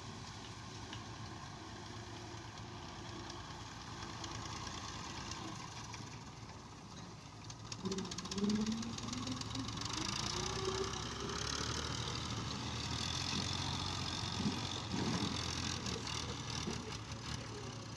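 Massey Ferguson 240's three-cylinder diesel engine running under load as the tractor pulls a loaded straw trolley, getting louder as it passes close, about halfway through.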